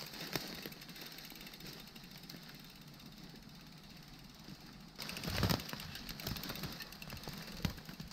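Faint steady hiss of wind and tyre noise from a bicycle on the move, with a louder low rumble about five seconds in and a short knock near the end.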